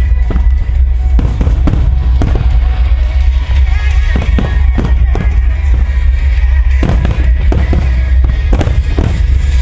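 Fireworks shells going off in rapid, irregular bangs, with a dense cluster of bursts a few seconds before the end, over loud music played for a music-synchronised fireworks display.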